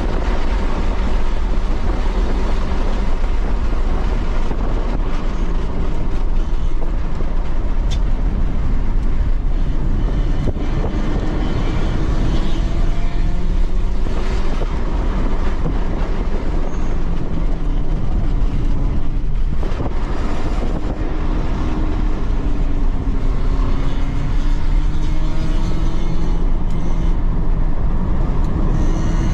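Inside a Tesla Model 3 Performance at track speed: loud, steady road, tyre and wind noise, with the electric motor's whine gliding down and up in pitch as the car slows for corners and accelerates out of them.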